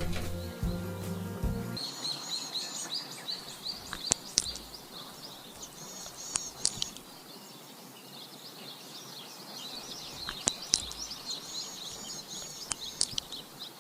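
Music stops about two seconds in, then small birds chirp in quick repeated calls over faint background noise, with a few sharp clicks.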